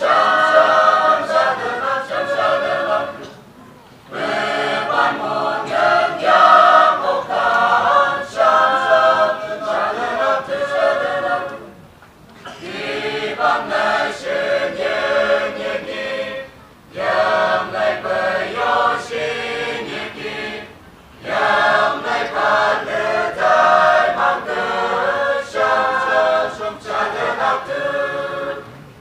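Mixed choir of men's and women's voices singing a hymn unaccompanied, in phrases broken by short pauses for breath.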